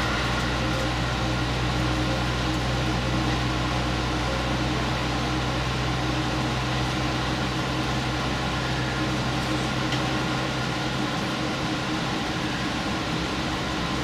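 Diesel express railcar running at speed, heard from inside the train: a steady engine drone over rolling and running noise. The low engine hum drops away about ten seconds in.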